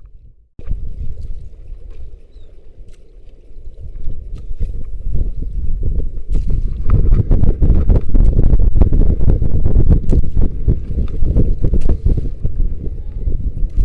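Wind rumbling on the microphone aboard a small fishing boat, mixed with hull and water noise and light knocks. It grows much louder about four seconds in.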